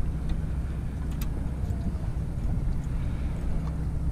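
Mercury 150 outboard motor idling steadily, a low even hum, with a few faint clicks of handling on the boat.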